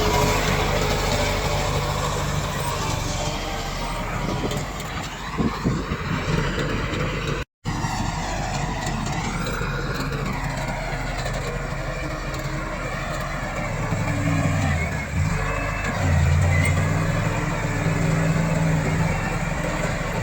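Komatsu D68 bulldozer's diesel engine running under load while pushing soil, its note strengthening in the last few seconds. A few knocks about five seconds in, and the sound breaks off for a moment about seven seconds in.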